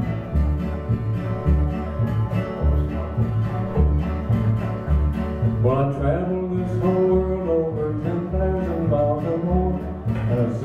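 Bluegrass band of acoustic guitars, upright bass and other plucked strings playing an instrumental break: the bass and guitars keep a steady alternating bass-and-strum rhythm, and a lead melody line comes in about six seconds in.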